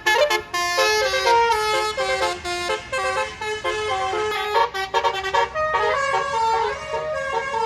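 Bus telolet horn, a Basuri multi-tone horn set, playing a fast melody: short notes stepping up and down several times a second, often several pitches sounding together.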